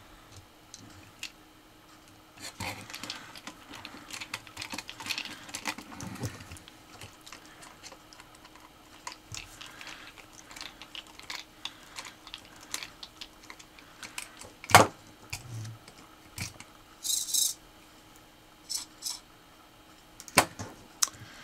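Small hand screwdriver and tiny screws being worked on a small metal robot chassis: scattered light clicks, taps and rattles of parts being handled, with one sharper knock about three-quarters through and a brief scratchy scrape soon after.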